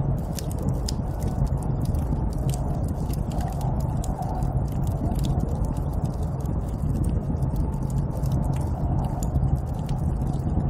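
Snowstorm ambience: a steady low rush of wind with many irregular sharp crackling clicks over it.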